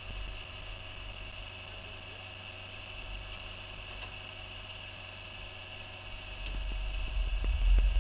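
Caterpillar compact track loader's engine idling steadily. About six and a half seconds in, a louder low rumble builds, with a few faint clicks.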